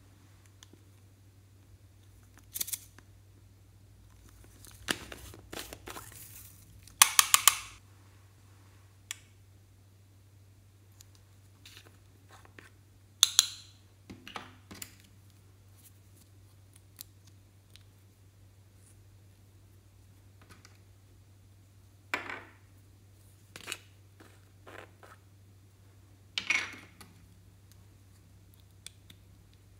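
Small plastic containers being handled and opened: scattered clicks, snaps and short crackly scrapes of plastic lids, the loudest about seven and thirteen seconds in, over a faint steady low hum.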